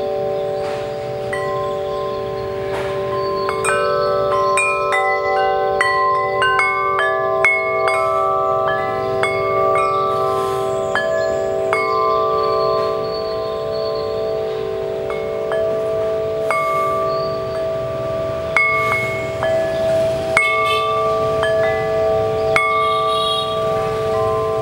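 VENUS-44 wind chime, six long aluminium-alloy tubes 44 mm across, ringing as its striker knocks the swinging tubes, the tones overlapping and ringing on. The strikes come thick and fast a few seconds in, then grow sparser.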